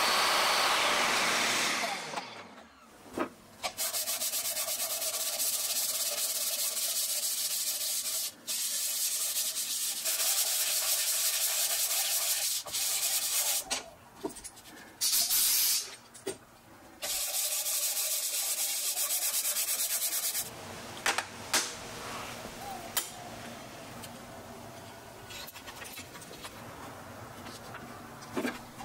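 A table saw cuts through a resin knife handle scale and winds down about two seconds in. Then comes a long stretch of steady scratchy rubbing with short breaks, as the handle scale is sanded flat by hand on a sheet of sandpaper laid on a granite slab. Near the end it goes quieter, with a few sharp clicks.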